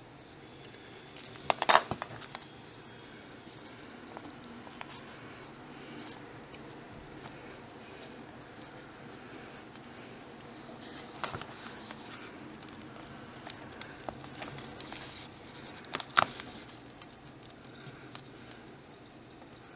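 Faint scratching of a wooden sculpting tool scoring soft polymer clay, with fingers pressing and handling the clay. Brief clusters of sharp clicks stand out about two seconds in and again near the end.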